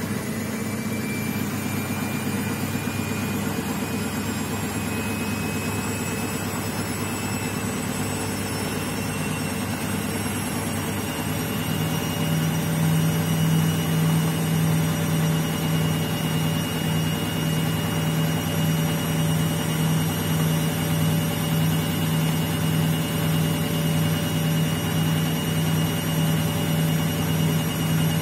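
Indesit front-loading washing machine in its spin cycle with an unbalanced load: a steady motor whine that rises slowly in pitch as the drum speeds up, over a low hum that gets louder about twelve seconds in.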